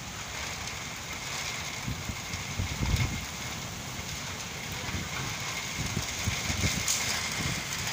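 Heavy rain falling in a steady hiss, with strong gusting wind buffeting the microphone in irregular low rumbles.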